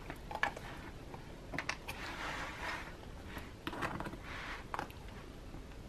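Flathead screwdriver scraping and clicking against the metal ring mechanism of a planner as its retaining clips are pried up: a few light clicks and two short scraping rubs.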